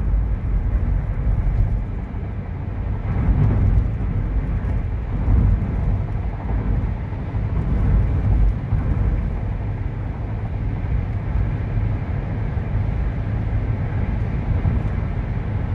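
Road noise inside a car cruising on a highway: a steady low rumble of tyres on concrete pavement.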